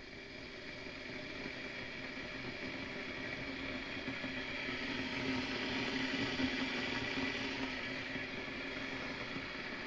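A machine running with a steady whirring noise and a held hum, building up in level over the first few seconds and then holding.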